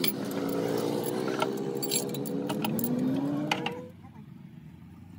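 Steel valve springs and pushrods clinking together as they are handled over the cylinder head, against a motor vehicle engine running nearby with its pitch rising. The engine sound and the louder clinking stop abruptly about four seconds in, leaving only faint metal clicks.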